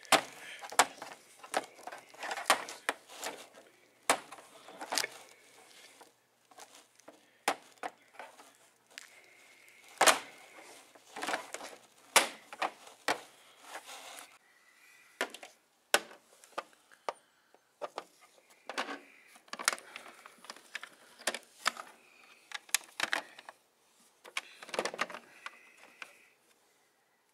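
Hard plastic action figures knocking and clacking against each other and the plastic toy street set as they are handled: irregular sharp clicks and taps with handling rustle between them, stopping near the end.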